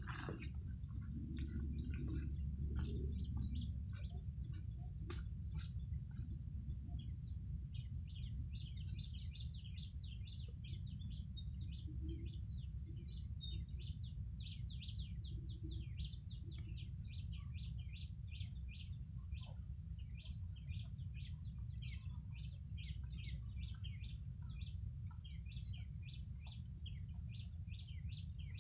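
Garden ambience: a steady high insect drone with small birds chirping in quick repeated notes, over a low steady rumble.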